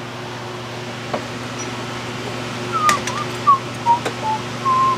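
A man whistling idly, short wavering phrases of a tune starting about three seconds in, over a steady background hum with a few faint clicks.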